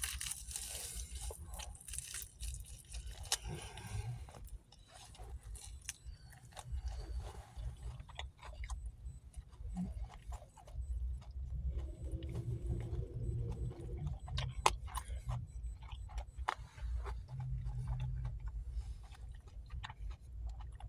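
A person biting and chewing crisp fried chicken close to the microphone, with many short crunches.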